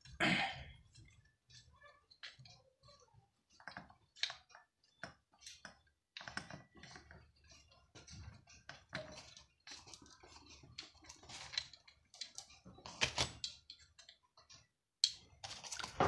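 Irregular small metallic clicks and taps from an 8 mm socket wrench turning a bolt loose on a mixer grinder motor, with louder clatter near the start and again about 13 seconds in.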